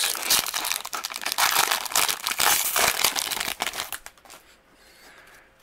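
Foil wrapper of a 2019 Bowman baseball card pack crinkling as it is opened by hand, a dense crackle that stops about four seconds in.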